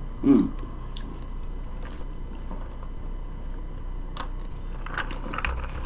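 Close-up eating sounds: quiet chewing with scattered small mouth clicks, and a sip through a straw about four seconds in, followed by a few more clicks and a soft low thump.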